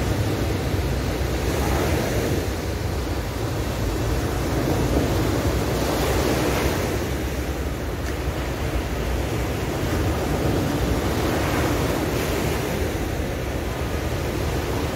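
Sea waves breaking and washing onto a beach, the surf swelling every five or six seconds, with a low wind rumble on the microphone.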